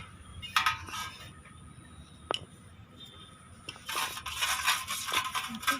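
Spoon scraping and clinking in a bowl as sugar is stirred into beaten egg, with a single sharp clink about two seconds in and busier scraping near the end.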